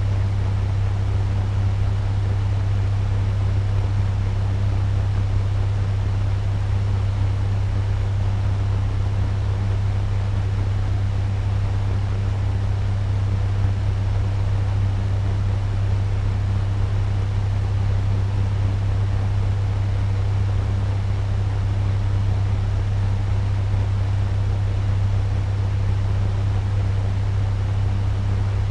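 Turbo fan running steadily at medium speed: an even rush of moving air over a strong low motor hum.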